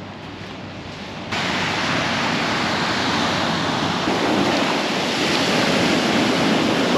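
Ocean surf breaking and washing up on a sandy beach. The surf is quieter for the first second or so, then abruptly much louder up close at the water's edge.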